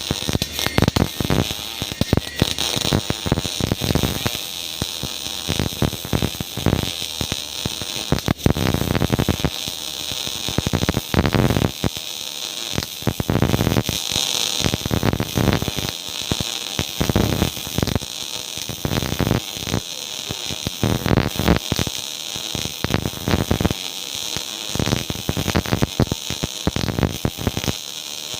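MIG welding arc crackling: a dense, irregular sputter of sharp clicks that runs in stretches with brief pauses between beads.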